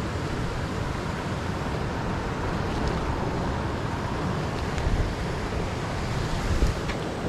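Wind buffeting the microphone: a steady low rush of noise, with a couple of stronger gusts about five and six and a half seconds in.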